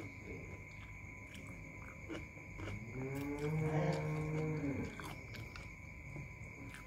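A person eating noodles with a spoon: chewing, slurping and small spoon clicks. About two and a half seconds in comes a long, closed-mouth 'mmm' of enjoyment lasting about two seconds, rising and then falling slightly in pitch; it is the loudest sound.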